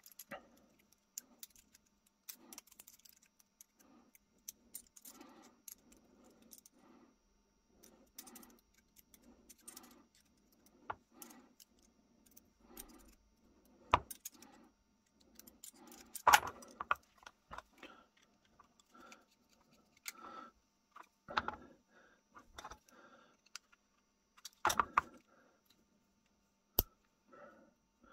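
Small steel parts of an antique percussion pocket pistol's lock clicking and scraping as it is handled and its spring and nut are worked back into place: irregular light metallic clicks, with a few sharper clicks scattered through.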